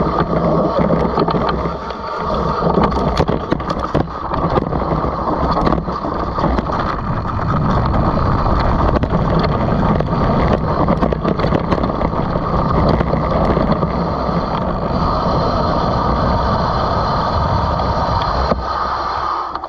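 Wind rushing over the helmet or chest camera's microphone while a downhill mountain bike rides a rough dirt trail, its knobby tyres rolling and its frame and chain rattling and knocking over bumps throughout.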